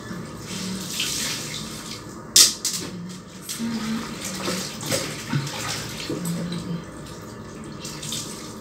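Clothes being washed by hand in a plastic tub of water: irregular splashing and sloshing as a wet garment is lifted, squeezed and dunked, with the sharpest splash about two and a half seconds in.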